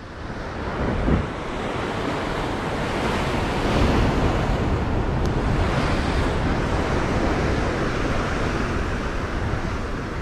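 Ocean surf breaking on rocks, a steady rushing wash, with wind buffeting the microphone and a brief low bump about a second in.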